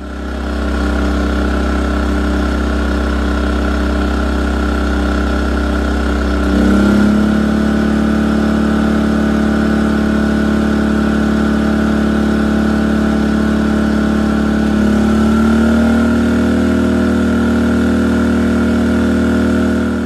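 A-iPower SUA2000i inverter generator running in eco (idle) mode under a space-heater load. Its engine steps up in speed twice, about seven and about fifteen seconds in, as the load climbs from about 500 to about 1,500 watts.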